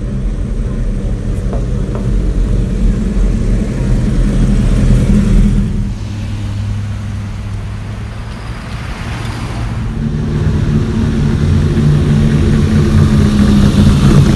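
Engines of classic cars driving past one after another: an engine grows louder over the first few seconds, a lower, steadier engine note follows, then another car's engine builds up to the loudest point near the end as it passes close.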